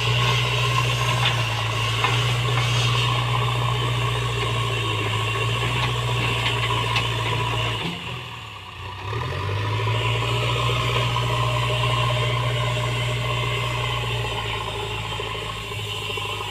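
Diesel engine of a JCB 3DX backhoe loader running with a steady low drone. Its note dips briefly about eight seconds in, then picks up again.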